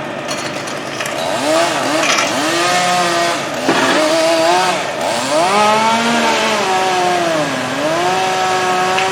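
Chainsaw engine running, its pitch rising and falling again and again as the throttle is worked. There is one sharp knock a little under four seconds in.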